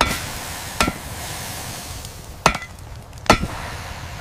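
Hammer striking hot metal on an anvil four times, in two pairs, each blow ringing briefly with a metallic clang, over a steady hiss.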